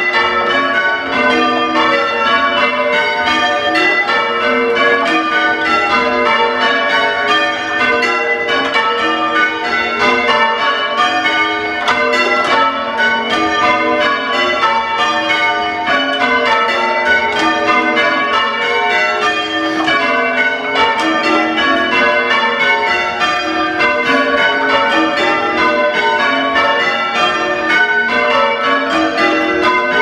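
Change ringing on a ring of six church bells with the tenor in A: a continuous, even run of bell strikes, heard from the ringing chamber below the bells. The bells have a harsh, fairly untuneful tone.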